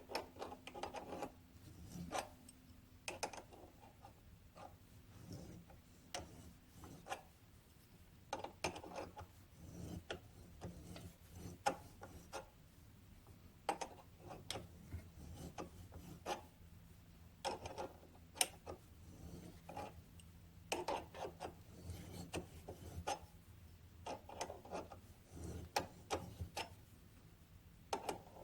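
Small metal parts being handled and worked by hand: irregular clicks, knocks and brief scraping, over a faint steady hum.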